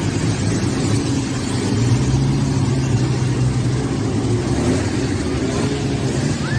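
Vintage open-top jeeps' engines running steadily at low speed: a loud, even low hum.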